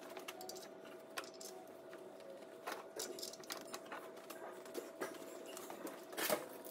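Light, irregular clicks and knocks from a socket, long extensions and bar turning the crankshaft of a Citroen TU5JP4 1.6 petrol engine over by hand, to bring the camshaft timing holes into line. A louder cluster of knocks comes about six seconds in, over a faint steady hum.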